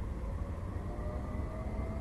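Electric tram in city traffic, its motor whine rising slowly in pitch as it accelerates, over a steady low rumble.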